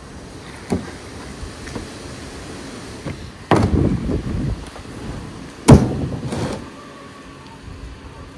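A light knock about a second in, then two loud knocks about two seconds apart, each followed by a short rattle, as of hard objects being set down or handled.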